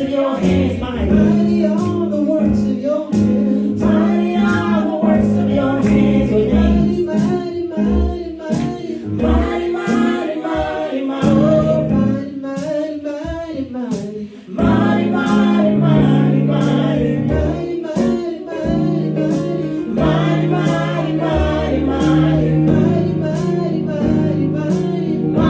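Gospel worship song sung by a group of voices with instrumental accompaniment. The music dips briefly about halfway through, comes back, and cuts off abruptly at the end.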